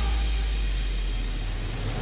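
Electronic background music in a breakdown: one held deep bass note under a faint hiss, slowly fading, with no beat.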